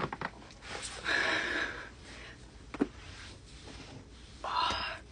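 Chiropractic adjustment: a few small clicks, then a noisy breath out, then a single sharp, loud joint crack about three seconds in, followed by another short breath near the end.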